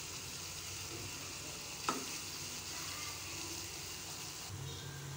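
Spiced onion-tomato masala sizzling in oil in a nonstick kadai while a spatula stirs it, with one short knock about two seconds in. The sizzle softens near the end.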